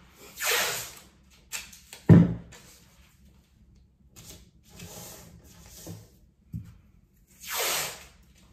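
Blue painter's tape being pulled off the roll in long rasping strips, twice loudly, about half a second in and again near the end. A sharp knock comes about two seconds in, with softer tape handling and rustling in between.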